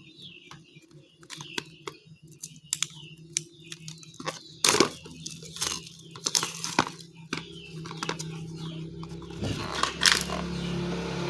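Packaging being handled, crinkling and tearing, with many irregular sharp crackles and clicks; the loudest come a little under five seconds in and again near the end.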